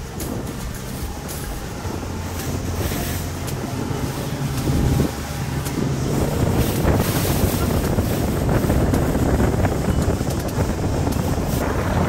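Motorboat underway: the engine's steady low drone under heavy wind buffeting on the microphone.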